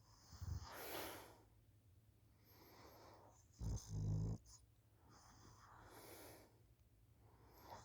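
A sleeping person snoring: one short, loud, low snore about halfway through, with softer breathy breaths about a second in and again near six seconds.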